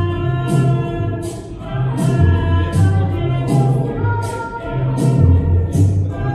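Live electronic music: a looped beat with short hi-hat-like ticks about twice a second over a stepping bass line and held synth tones, with a woman singing into a microphone over it.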